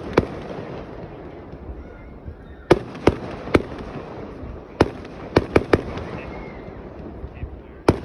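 Fireworks display bursting: sharp bangs in clusters, one right at the start, three in quick succession around three seconds in, and four close together around five seconds in, over a steady background hiss.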